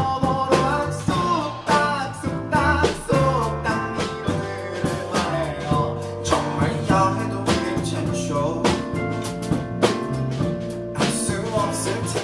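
Live pop band performing: a male lead vocal sings over acoustic guitar, electric bass and keyboard, with percussion keeping a steady beat.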